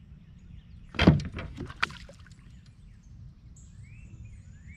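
A bass flopping on a kayak deck and splashing back into the lake: a quick burst of knocks and a splash about a second in, lasting about a second. Birds chirp near the end.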